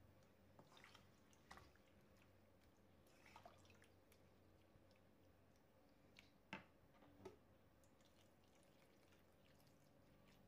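Near silence, broken by a handful of faint, soft clicks of a wooden spoon stirring a pot of curry, the loudest about six and a half seconds in.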